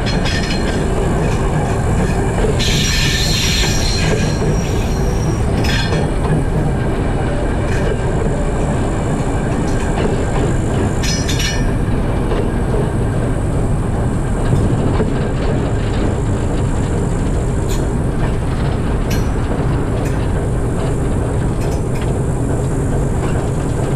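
TEM2 diesel shunting locomotive running steadily as it hauls a train of open freight wagons, with wheels and wagons rumbling over the rails. High wheel squeal rings out between about two and a half and four and a half seconds in, and again briefly around six and eleven seconds.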